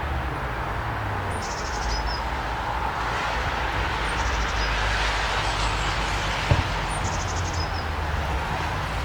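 A car passing on a road, its tyre and engine noise swelling and fading about halfway through, over a steady low rumble. A small songbird repeats the same short, high, fast trilled phrase three times. A single sharp thump sounds about six and a half seconds in.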